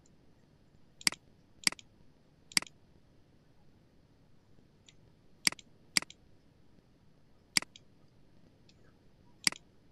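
Computer mouse button clicking, seven sharp single clicks at uneven intervals while paging through a document.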